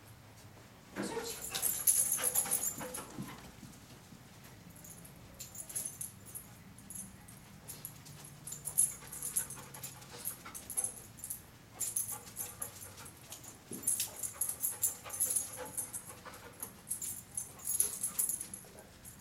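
Dog sniffing and panting in short, irregular bursts while searching for a scent, loudest about a second in.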